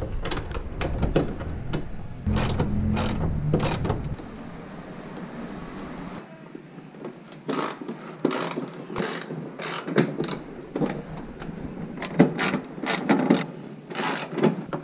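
Hand socket ratchet clicking in short runs of strokes as the screws holding a car's plastic inner fender liner are undone, among knocks and scrapes from handling the liner.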